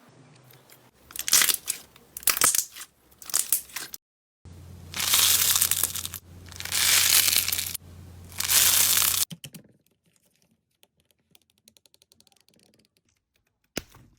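Slime being squeezed and pressed by hand, crackling and crunching in several short bursts, then in three longer crinkling presses about a second each. Near the end there are only faint, rapid little crackles.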